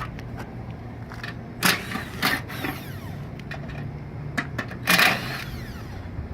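Sheet-metal access panels of a rooftop package AC unit clanking and rattling as they are handled and removed, with sharp knocks and a ringing wobble, loudest about five seconds in. A steady low hum runs underneath.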